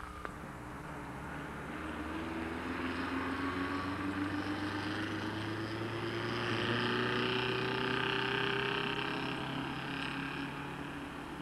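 Engine drone of a distant passing vehicle, rising slowly in pitch, swelling in the middle and easing off near the end.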